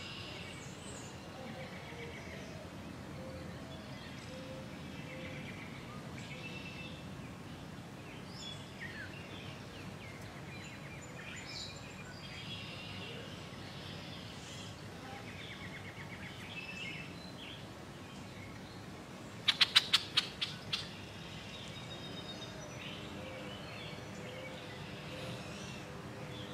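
Songbirds chirping and calling on and off over a steady low background hum. About twenty seconds in there is a quick run of sharp, loud clicks lasting about a second.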